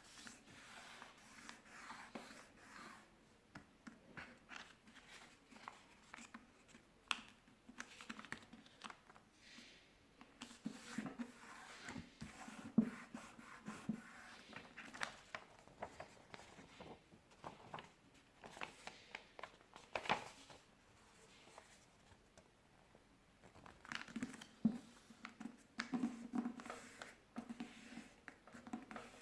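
A sheet of paper being folded and creased by hand: irregular rustling and crinkling with short, sharp creasing strokes, a few of them louder.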